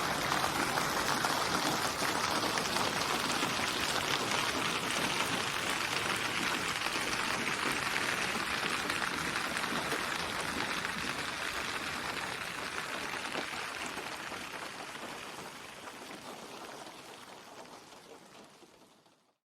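Steady, dense rain recording that slowly fades out over the last several seconds to silence.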